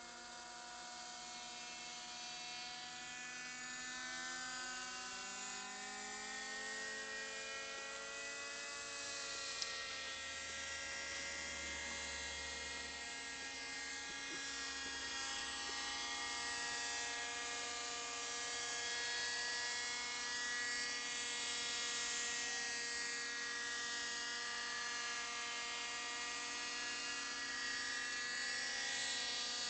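Raptor 30 RC helicopter's small two-stroke nitro glow engine and rotor spooling up: a buzzy whine that rises in pitch and grows louder over the first eight seconds or so, then holds a steady pitch.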